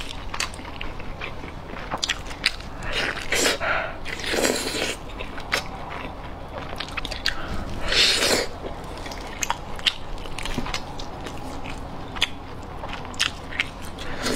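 Close-miked eating sounds of a woman biting into and chewing a sauce-glazed braised chicken leg: wet chewing with many sharp mouth clicks and lip smacks. Louder wet bites come a few seconds in and again about eight seconds in.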